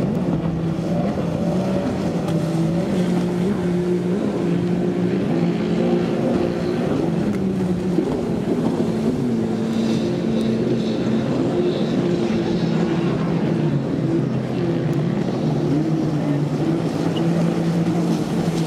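Jet ski engines running at racing revs, their pitch rising and falling with the throttle.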